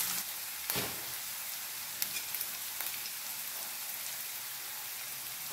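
Chopped onions sizzling in hot oil in a stainless steel frying pan, a steady crackling hiss. A light knock just under a second in, probably the spatula.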